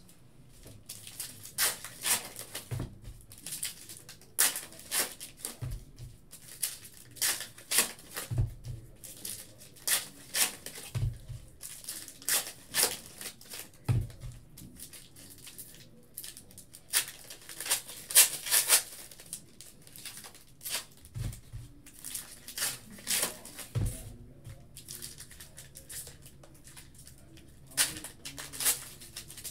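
Trading-card packs being opened and handled: foil wrappers crinkling and tearing, and cards sliding and flicking against each other in quick irregular strokes, with a soft thump every few seconds as a card stack meets the table.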